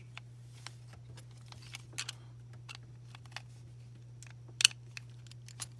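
Scattered light clicks and taps of small hard objects being handled and set down on a work surface, with one sharper knock about four and a half seconds in, over a steady low electrical hum.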